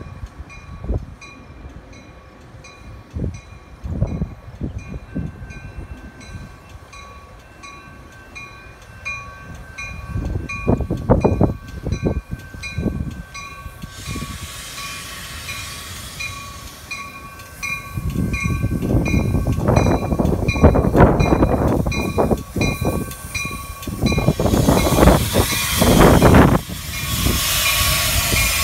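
Metra bilevel commuter train pulling into the station and passing close by, with a bell dinging steadily about twice a second. A hiss builds from about halfway, and the rumble of wheels and brakes grows loud over the last ten seconds as the cars roll past.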